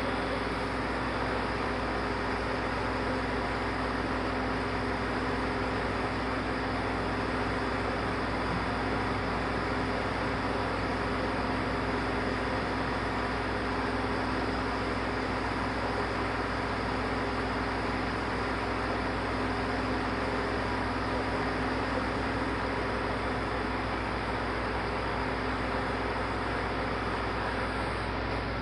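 Steady mechanical hum with a few held tones over a constant hiss, unchanging throughout.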